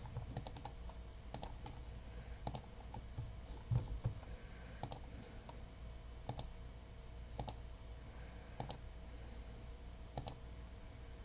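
Computer mouse button clicking again and again, a faint click about every one to one and a half seconds, each click re-running an online list randomizer.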